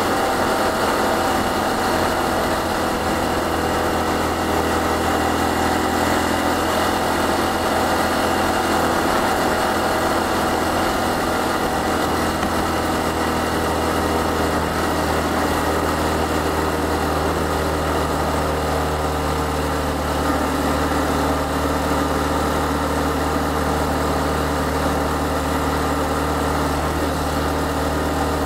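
Honda Cross Cub CC110's 109 cc single-cylinder four-stroke engine running steadily at cruising speed, heard from the rider's seat with wind and road noise around the helmet. The engine note settles a little lower past the middle.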